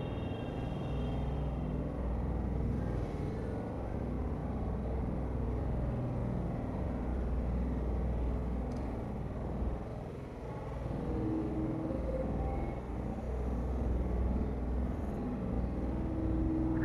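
Steady low rumble without a clear pitch. A faint steady hum joins it about eleven seconds in.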